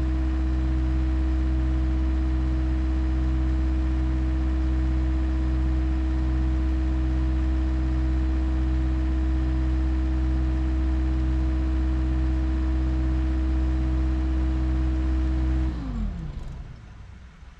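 A machine's engine idling steadily with an even low throb, then shut off about sixteen seconds in, its pitch sinking as it winds down to stop.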